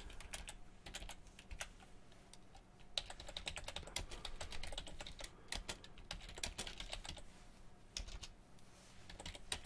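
Computer keyboard typing: quick runs of key clicks with short pauses between them.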